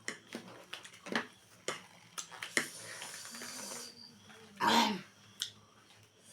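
Scattered sharp clicks and small noises of eating and handling food, a hiss lasting about a second and a half in the middle, and one short, loud pitched call about three-quarters of the way through.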